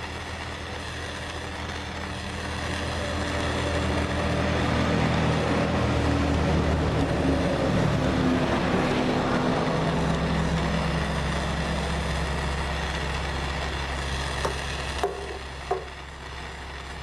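Electric heat gun running, its fan motor humming under a steady rush of hot air as it heats a plastic hose end to soften it. A few light clicks come near the end.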